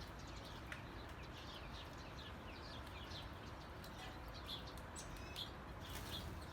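Faint chirping of small birds: many short, quickly repeated falling chirps.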